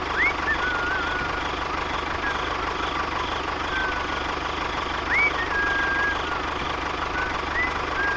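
Small motor running steadily with a high whine and a low hum, with three short whistled chirps that rise and then hold, near the start, about five seconds in and near the end.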